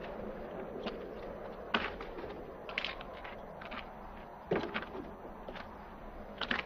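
Sparse, irregular scuffs and clicks over a low steady hiss, with a heavier thud about four and a half seconds in; no music or speech.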